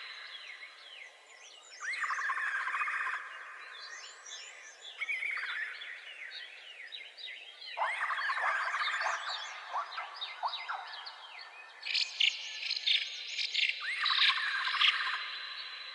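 A chorus of wild birds calling and chirping over one another, with harsh calls about a second long coming every few seconds, over a steady high-pitched insect drone.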